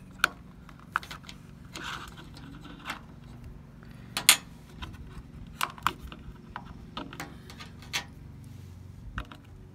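Scattered sharp clicks and taps of a thin metal pick working at the snap-fit plastic case of a diesel-heater controller, with one louder click about four seconds in. A steady low hum runs underneath.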